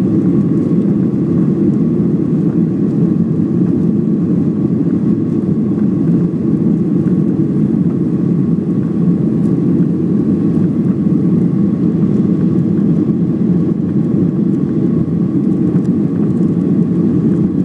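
Steady cabin noise of a passenger jet climbing after takeoff: a deep, even roar of the engines and rushing air, heard from a window seat, with a faint steady hum above it.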